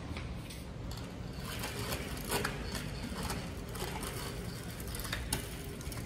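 A child's bicycle rolling over a concrete floor, tyres rumbling, with scattered small clicks and light rattles.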